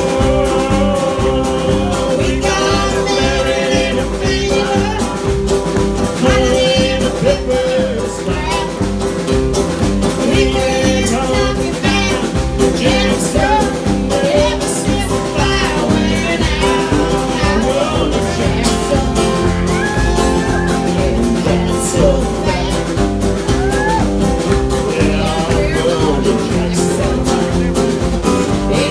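Live country band playing: acoustic guitar, upright double bass and a drum kit keeping a steady beat, with singing over it.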